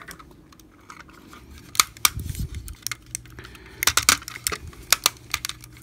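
Plastic parts of a transforming Megatron robot toy and its add-on kit clicking and knocking as the figure is handled and its legs repositioned: scattered sharp clicks, a couple about two seconds in and a quick cluster near the end.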